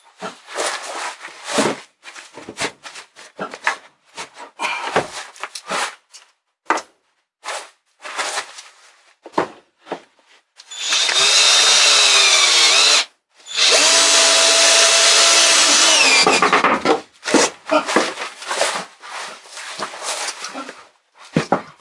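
Cordless drill-driver driving screws into wooden boards, running in two spells of two to three seconds about halfway through, its pitch dropping under load in the first. Knocks and rattles of boards being handled come before and after.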